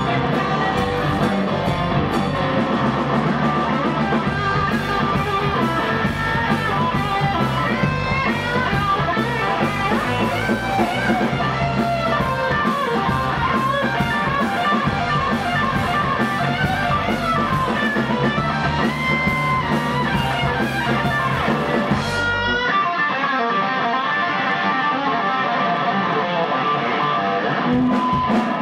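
Live blues-rock band with electric guitars, bass guitar and drums playing an instrumental passage. About 22 seconds in, the drums and bass drop out and a lone electric guitar plays on.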